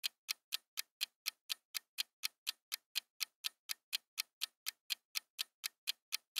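Clock-tick sound effect marking a quiz countdown timer: sharp, evenly spaced ticks, about four a second.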